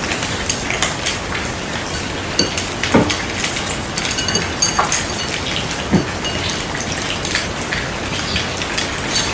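Many cats eating together from shallow metal bowls: a steady din of chewing and lapping, with the bowls clinking and ringing briefly now and then.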